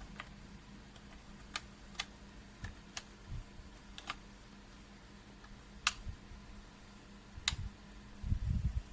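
Keys of a semi-mechanical keyboard pressed singly: sharp clicks at irregular intervals, not continuous typing. There are dull bumps of handling between them and a cluster of them near the end.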